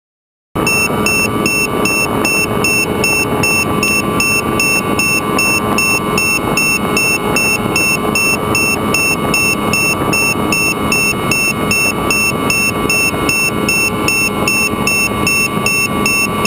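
Onboard audio of a Skywalker X8 FPV flying wing in flight: a loud, steady rush of air and electric pusher motor with a constant hum, overlaid with a fast, regular high electronic chirping. It cuts in abruptly about half a second in.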